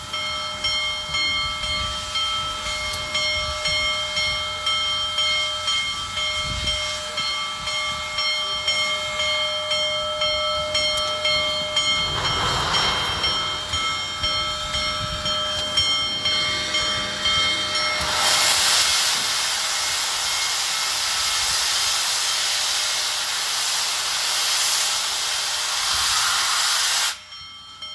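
Union Pacific Big Boy 4014, a 4-8-8-4 articulated steam locomotive, sounds its chime steam whistle as one long held chord for most of the first two thirds, over the pulsing beat of the engine working. About two thirds of the way in the whistle stops and a loud steady hiss of steam blowing from the open cylinder cocks takes over, then cuts off suddenly near the end.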